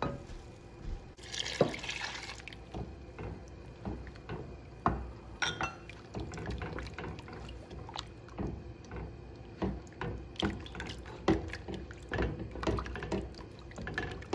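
A spoon stirring thin, milky soup in a pot: liquid sloshing, with repeated clicks and scrapes of the spoon against the pot as milk is worked into a flour-and-butter base to keep it from lumping. A brief rush of pouring liquid comes about a second in.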